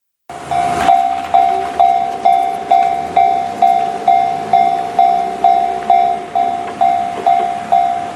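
A JR line level-crossing warning bell in Japan, ringing its electronic 'kan kan' alarm. It sounds as evenly repeated ringing tones, a little over two a second, each stroke sharp and then decaying.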